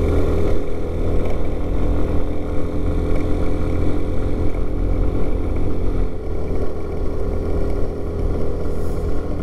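Lance PCH 125 scooter's 125 cc single-cylinder engine running steadily while the scooter is ridden up a road, with a low wind rumble throughout.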